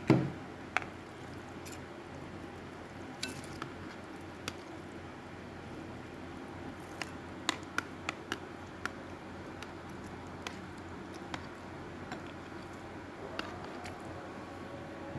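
Shredded jelly being tipped out of a plastic bag onto ice cubes in a bowl: soft squishing with scattered light clicks and a sharper knock at the start, over a steady background hum.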